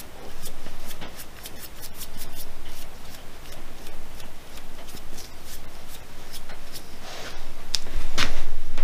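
A bristle brush dabbing and rubbing finish onto a turned spalted beech wooden mug, a run of small scratchy ticks. Near the end come louder rustles and knocks as the mug is handled.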